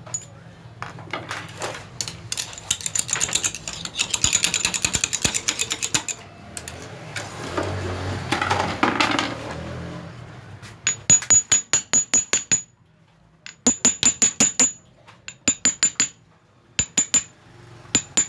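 Metal parts being handled and scraped for several seconds. Then a hammer taps on metal in quick runs of five or six ringing strikes, repeated several times in the second half.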